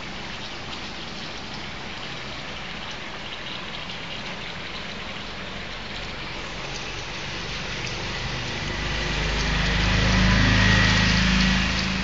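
Steady patter and trickle of water in shallow aquarium tanks. About two-thirds of the way in, a low hum comes up and grows louder, then eases near the end.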